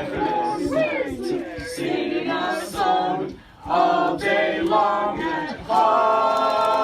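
A small group of amateur voices singing together a cappella, with a brief break about halfway and a long held note that starts near the end.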